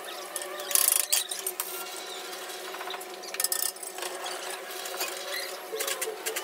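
Irregular clatter and scraping from handling tools and parts, with a louder burst about a second in and another about three and a half seconds in. No motor is running.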